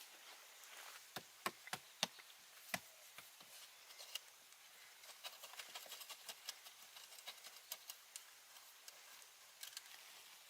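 Several sharp knocks a little over a second in, followed by scattered light ticks and taps over a faint hiss.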